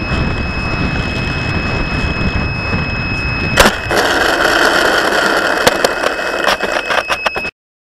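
Onboard camera audio of an RC FPV wing flying low: wind rush with a steady high whine. About three and a half seconds in, a hard thud as it touches down, then scraping and rattling as it skids across gravel, until the sound cuts off abruptly.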